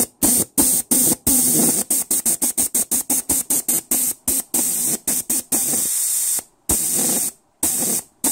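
VW automatic transmission on-off shift solenoid in a bench tester with compressed air behind it, switched on and off over and over: each time it opens, air hisses out in a blast that stops sharply when it shuts. The bursts come fast and choppy, about four a second through the middle, with a few longer blasts near the end, pulsing air through the valve to flush out debris.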